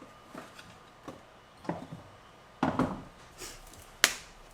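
Kitchen items knocking and clattering on a counter as things are handled and put away: a string of separate knocks, a louder clatter about two-thirds of the way through and a sharp click near the end.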